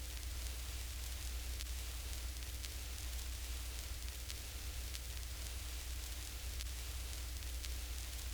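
Analog playback noise texture: a steady hiss over a strong low hum and a faint steady tone, with faint scattered ticks.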